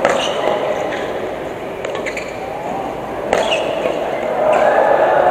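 Badminton racket hitting a shuttlecock in a rally: three sharp hits, one at the start, one about two seconds in and one just over three seconds in, over background voices that grow louder near the end.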